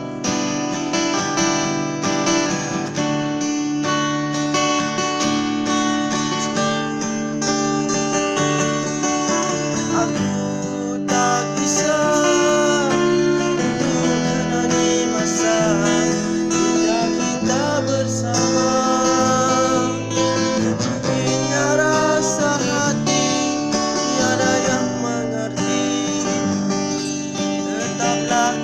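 Acoustic guitar playing the song's accompaniment with steady chords. From about twelve seconds in, a higher wavering melody line plays over it.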